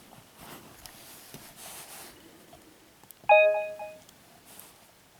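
Samsung SMX-C20 digital camcorder giving a short electronic chime of a few quick notes, about three seconds in.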